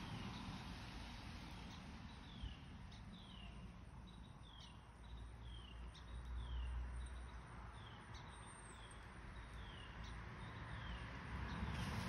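Gusty wind rumbling on the microphone, rising about five seconds in, while a bird repeats short falling chirps over and over.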